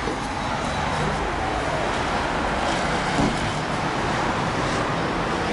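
Steady street traffic noise: an even hiss of passing cars from the road outside, with no single event standing out.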